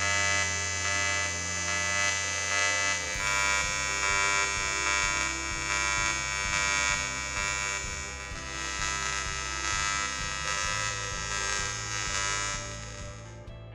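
AC TIG welding arc on aluminium from a VIPER 180 AC/DC inverter welder, giving a steady, dense electrical buzz. The buzz shifts in texture a few seconds in and fades out near the end.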